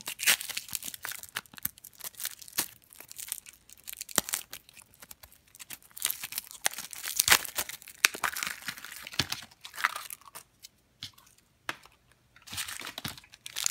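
Plastic packaging of a blind toy pumpkin being torn open and handled: irregular crinkling and tearing with many sharp clicks. It goes nearly quiet for a moment about three-quarters of the way through, then the crinkling starts again.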